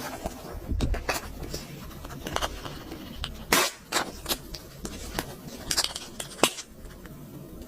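Slime being mixed, squishing with irregular sticky clicks and pops, the loudest about three and a half seconds in.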